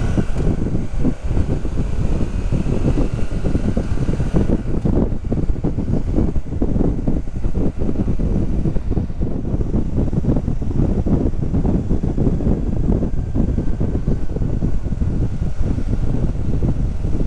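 Motorcycle on the move: engine running under steady heavy wind buffeting on the microphone, with the engine's pitch audible for the first few seconds.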